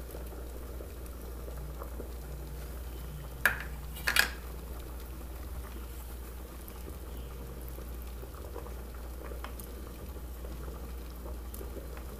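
Pots simmering on a gas stove: tomato sauce in a saucepan beside a pot of pasta water at the boil, a steady bubbling. Two sharp knocks come about three and a half and four seconds in.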